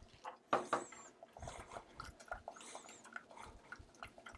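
Stirring in a saucepan of simmering thickened coffee just after sugar is added: a utensil clicks and scrapes against the pan in quick, irregular strokes, with a louder knock about half a second in. A faint high chirp comes now and then.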